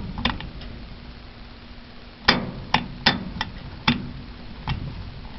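1970s Luxair furnace running with a steady low hum, broken by several sharp, irregularly spaced clicks and ticks.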